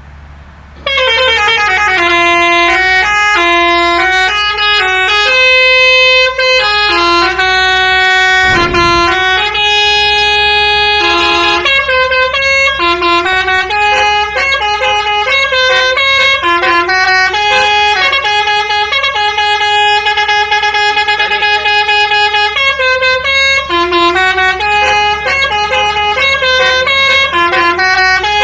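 Indonesian bus 'telolet' basuri horn playing a tune: a loud, multi-tone air-horn melody of stepped notes that starts about a second in.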